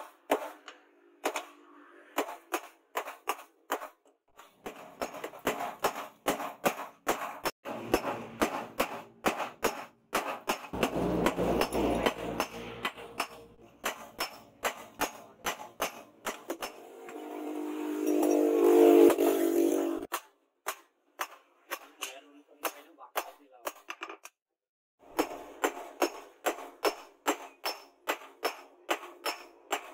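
Hand hammer striking red-hot steel on a post anvil, forging a cleaver blade, in regular sharp blows about two or three a second. In the middle a louder hum with a steady pitch swells under the blows and stops abruptly about twenty seconds in. The blows pause briefly near the end and then resume.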